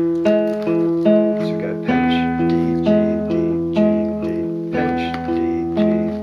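Acoustic guitar fingerpicked: a thumb-and-finger pinch on two strings, then single notes alternating on the D and G strings, repeated over the chord.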